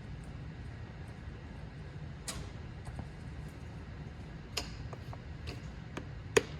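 A steady low hum with a few faint clicks of handling, then near the end one sharp knock: the first blow of a piece of wood driving an Alfa Romeo 164 24V piston down into its bore.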